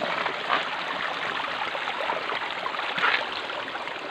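Shallow stream running over rocks and gravel: a steady rush and trickle of water, briefly louder about three seconds in.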